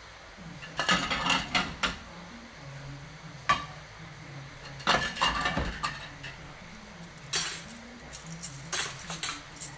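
Crockery and cutlery clinking and clattering in a café, in irregular bursts a few seconds apart over a faint low hum.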